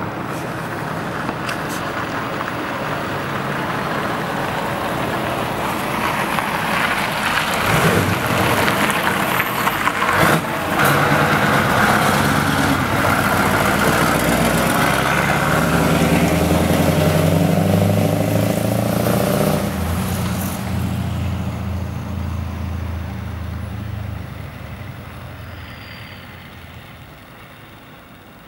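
Straight-piped Scania 144L 460 V8 diesel truck engine driving past under power. It builds as the truck approaches, is loudest through the middle with a brief dip about ten seconds in, and fades as it pulls away.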